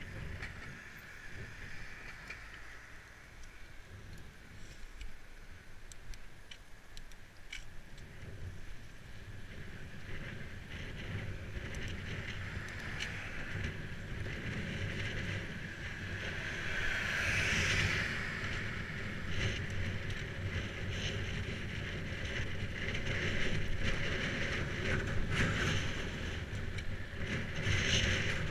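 Wind rumbling over a GoPro's microphone and tyre noise from a bicycle riding on a tarmac road, building gradually louder as the speed rises, with occasional sharp clicks and knocks.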